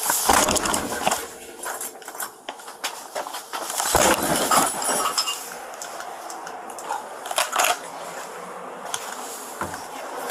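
A boot kicking at a solid wooden front door: heavy thuds about half a second in and again about four seconds in, with more knocks near eight seconds and rattling and clattering in between.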